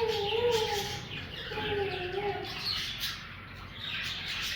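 Budgerigars chirping and chattering in quick, short high calls. A lower wavering tone runs under them for the first second and again about two seconds in.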